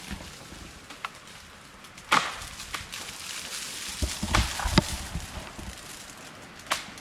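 Ice-coated tree branches cracking and snapping under the weight of freezing-rain ice: scattered sharp pops, the loudest about two seconds in, with a few dull thumps among cracks around four to five seconds in.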